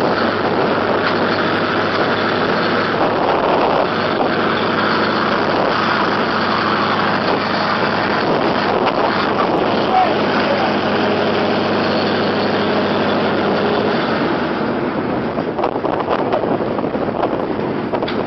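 An engine running steadily with a low hum, which drops away about fourteen seconds in, leaving gusty wind-like noise.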